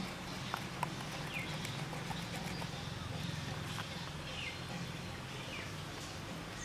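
A few sharp taps of a hand-held rock and raw green mangoes against a stone grinding slab, over steady outdoor ambience with a low hum. Short falling bird chirps come every second or so.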